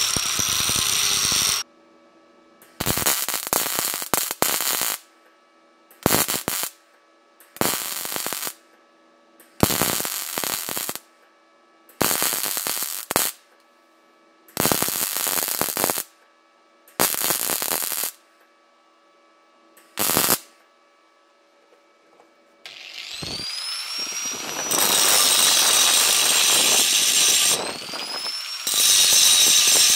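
Angle grinder with a thin disc grinding steel, stopping about a second and a half in. Then about eight short bursts of arc-welding crackle, each one to two seconds long, laying tack beads on a rust-pitted bayonet blade. Near the end the angle grinder spins up with a rising whine and grinds the weld beads down, briefly dropping off and spinning up again.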